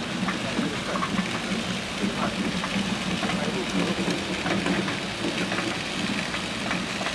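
Steady running noise of a hand-pushed thermoplastic road-marking machine laying a stripe, its gas-heated screed box and wheels on asphalt giving a constant hum under an even hiss.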